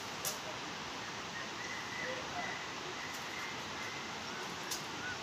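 Outdoor woodland ambience: a steady hiss of air through leaves, with a faint thin high call held for a couple of seconds partway through, and two light clicks, one near the start and one near the end.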